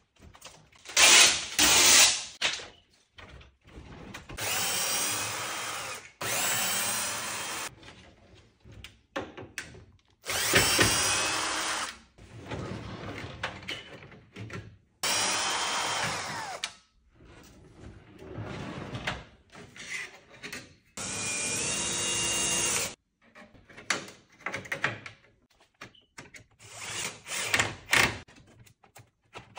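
Power drill driving screws in about six short bursts of one to two seconds, its motor whine rising as it spins up and dropping as it stops, with short knocks and clatter between the bursts.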